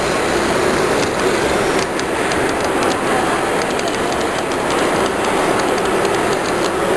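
A G-scale model freight train rolls past close by on brass track, its wheels clicking over the rail joints.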